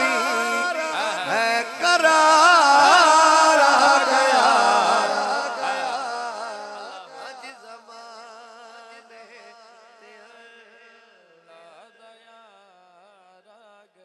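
Devotional naat music: a wavering, ornamented melody that is loud for the first few seconds, then fades steadily until it is faint by the end.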